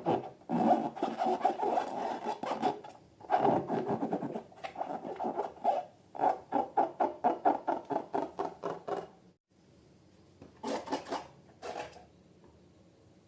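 Rubbing and scratching strokes as hands work balloons and slime. About six seconds in come quick, even strokes, roughly three a second. After a pause near nine seconds there are a few short strokes near the end.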